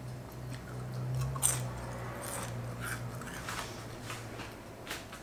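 Mouth chewing flaky puff pastry from a custard tart: soft crisp crackles and a few sharper crunches. A low steady hum sits underneath and fades out about three seconds in.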